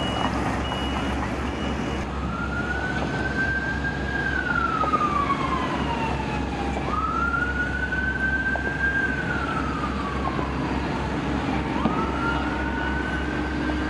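Emergency vehicle siren in a slow wail, three times: it rises, holds, then falls away over about five seconds each cycle. A truck's reversing beeper sounds a few times at the start over a steady low vehicle rumble.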